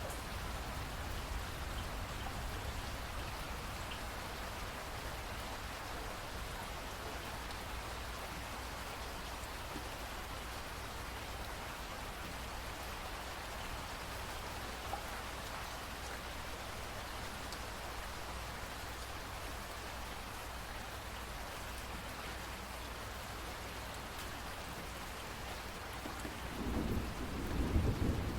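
Steady rain falling, with a low rumble of thunder building about two seconds before the end.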